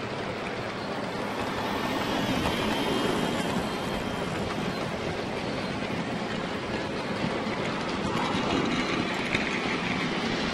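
Model freight train rolling close past on the layout track: a steady whir and rumble from the small electric locomotive's motor and the wagon wheels on the rails, rising a little about two seconds in.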